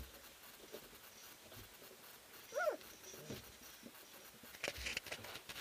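Three-week-old puppies wrestling: one short high whimper that rises and falls, about two and a half seconds in, among scratching and rustling of paws in wood shavings, busiest near the end.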